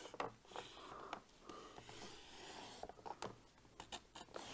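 Paper Fuel paper trimmer's blade carriage sliding along its rail and slicing a slit in cardstock: a faint scraping with scattered small clicks.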